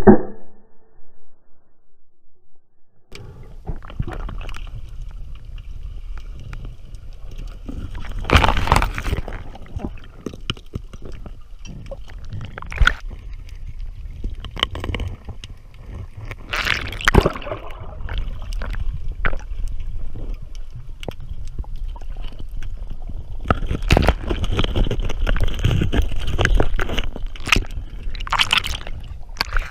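Underwater sound heard through a waterproof camera housing: water churning and gurgling around the camera, with knocks and clicks and several louder rushes of water. It starts nearly quiet for the first few seconds.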